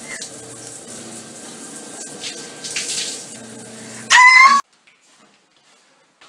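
Shower water running with a steady hiss, then about four seconds in a man lets out a short, loud, high-pitched scream that cuts off suddenly. After it, near silence with a few faint taps.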